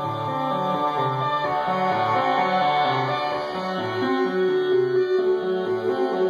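Analog modular synthesizer, mostly Synthesizers.com modules driven by an STG sequencer, playing a layered sequenced pattern. A bass line steps through short repeated notes about twice a second under overlapping sustained tones, and a steady higher note comes up about four seconds in.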